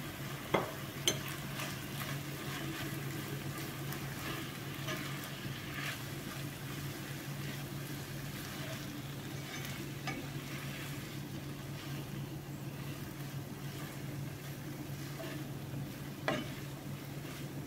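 Grated carrots, chicken pieces and onion frying with a gentle sizzle while a plastic spatula stirs and turns them in a non-stick pan. A few sharp knocks of the spatula against the pan come twice in the first second or so and once near the end.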